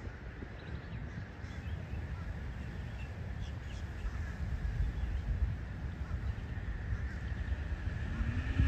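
Wind buffeting the microphone as an uneven low rumble, with a few faint bird calls in the background.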